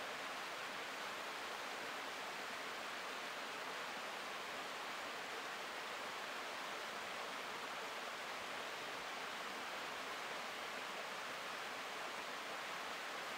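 Mountain stream rushing over rocks, a steady, even rush of water that does not change.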